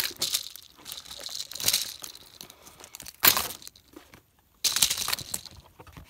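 Plastic fidget toys and their wrappers being handled and piled together: crinkling and rustling in several short bursts, with the sound cutting out for a moment just before the last burst.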